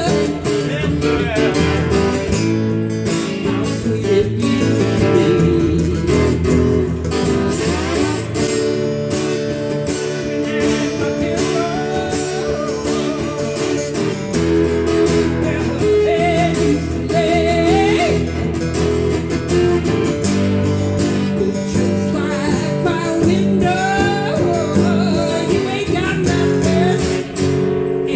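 Acoustic guitar strummed in a steady blues-rock rhythm, with a man singing lines over it into a microphone.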